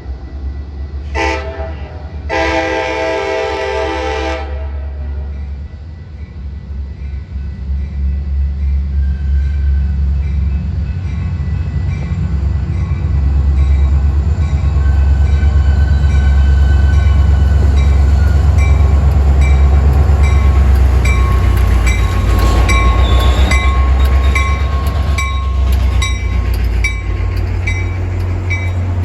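Metra commuter train's multi-chime air horn giving a short blast, then a long blast of about two seconds. The train then passes, its low rumble building to a peak midway, with evenly spaced wheel clicks over the rail joints near the end.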